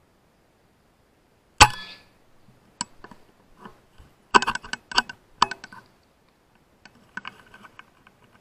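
A single rifle shot about a second and a half in, sharp and briefly ringing. It is followed by a run of sharp clicks and knocks, a dense cluster in the middle and a few more near the end.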